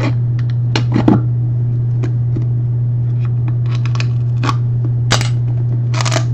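Plastic wrap on a sealed trading-card box being picked and torn open with a key: scattered clicks and a few short crinkling rips, the longest near the end, over a steady low hum.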